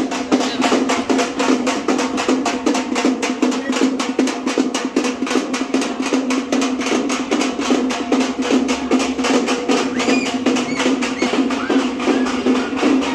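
Fast, even drumming of festival percussion over a steady held drone.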